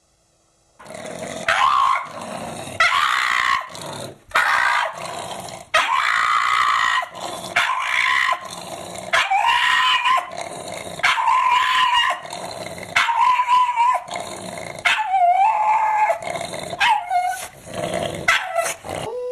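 A dog barking and growling over and over, about a dozen loud calls roughly a second apart, starting about a second in.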